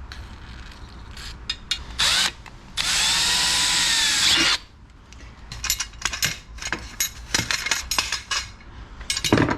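Power drill run briefly, then for about a second and a half with its motor pitch rising and falling, followed by scattered clicks and knocks of small parts being handled.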